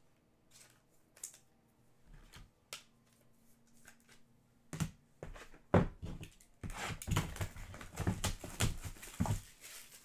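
Sparse light clicks and taps, then, from about five seconds in, a louder stretch of crinkling and rustling as a foil trading-card pack wrapper is handled.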